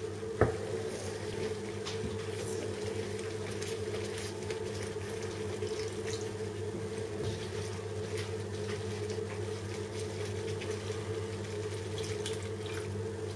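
Water poured from a glass jug into a pan of almond sauce while a wooden spoon stirs it, thinning the sauce, over a steady low hum. A single knock about half a second in.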